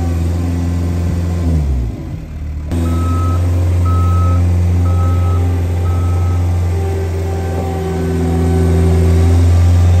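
Caterpillar 232B skid steer's diesel engine running with a steady low hum, its note falling away about two seconds in. Then the engine runs on while the machine's backup alarm beeps four times, evenly spaced, and the engine grows louder near the end.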